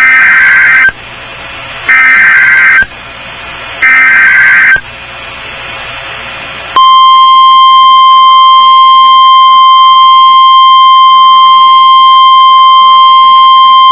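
Emergency Alert System signal: three one-second bursts of screeching SAME digital header data a second apart, then about seven seconds in a loud, steady single-pitched alert tone, the NOAA Weather Radio 1050 Hz warning tone, that holds to the end.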